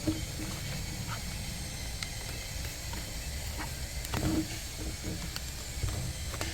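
Steady hiss with a few faint clicks and one soft scrape a little past four seconds in: a flat screwdriver probing inside a steering wheel's rear hole to push the airbag's metal release clip.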